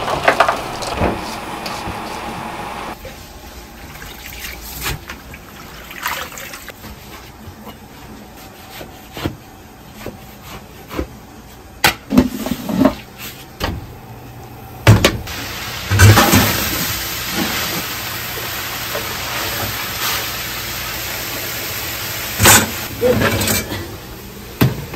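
Kitchen cooking sounds: scattered sharp knocks and clatters of utensils, over a steady watery rushing noise that grows stronger about halfway through.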